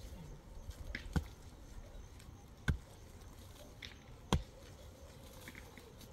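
Pickaxe striking hard, stony ground three times, about a second and a half apart, with small clicks of loosened stones in between.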